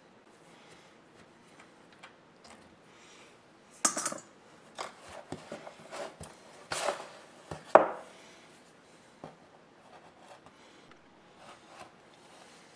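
Metal clicks, scrapes and knocks of an old Zephyr electric drill's gear housing being worked loose and taken apart by hand, exposing its oily gears. The handling noises are sparse at first, then come in a run of louder knocks and scrapes midway, the loudest about eight seconds in.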